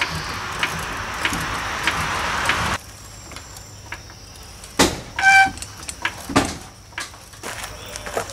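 Floor jack being worked under the front of a Subaru Legacy: a steady rasp with regular clicks that stops abruptly about three seconds in. Then a sharp crack, a brief metallic ringing squeal and another knock, as the already damaged front shock tower tears further apart with the body's weight on it.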